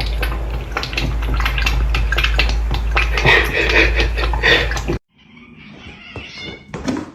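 A cat's noises over a steady low hum and clattering, cut off abruptly about five seconds in. A quieter stretch of pitched calls follows.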